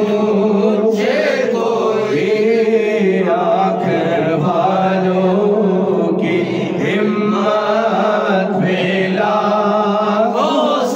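Voices chanting a naat, a devotional poem in praise of the Prophet, sung on without a break.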